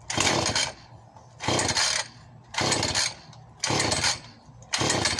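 Husqvarna 450e 50 cc two-stroke chainsaw being pull-started cold on choke: five quick pulls of the recoil starter cord, each a short rasping whir of the engine cranking over, about a second apart. The engine does not catch and run.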